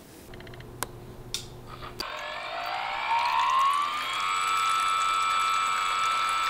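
A small motor whining, rising in pitch for about two seconds and then holding steady, while fuel streams from a clear tube into a glass beaker. Two faint clicks come before it starts.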